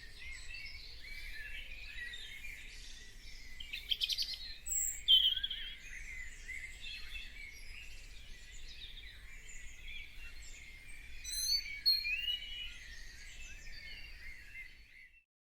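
Many songbirds chirping and singing at once, a dense chorus of overlapping calls, with a fast trill about four seconds in and louder single notes around five and twelve seconds.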